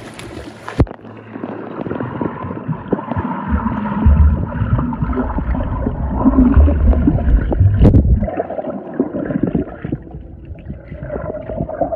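Muffled water gurgling and sloshing, loudest in a long stretch in the middle.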